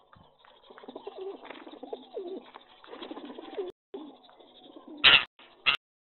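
Pigeons cooing: low, wavering coos repeat through the first few seconds. Near the end come two short, loud bursts of noise, the second briefer than the first.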